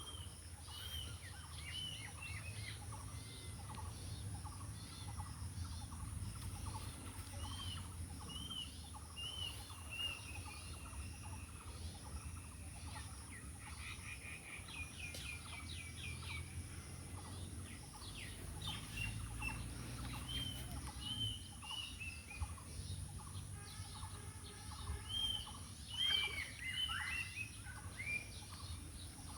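Birds chirping repeatedly with short, arched calls, busiest near the end, over a steady high-pitched insect drone and a low rumble.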